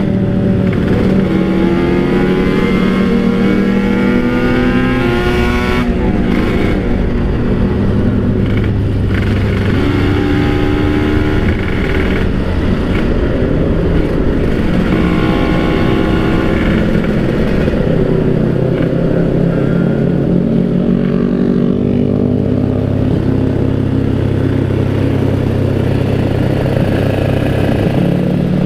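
Kawasaki Ninja RR's 150 cc two-stroke single-cylinder engine being ridden, its pitch climbing and dropping again and again as it revs through the gears, then running steadier toward the end.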